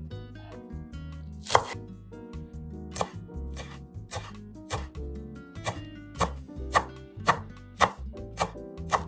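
Knife chopping on a cutting board: sharp single strikes, a few spaced out at first, then a steady rhythm of about two a second from roughly halfway in, over soft background music.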